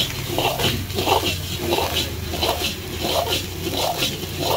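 Steel ladle scraping and tossing egg fried rice around an iron wok, in a steady rhythm of about two strokes a second, over a steady low hum.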